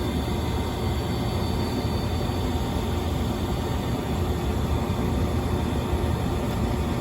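Trane XR80 gas furnace's draft inducer motor running steadily while the new hot surface igniter heats up, in the start-up sequence before the gas valve opens.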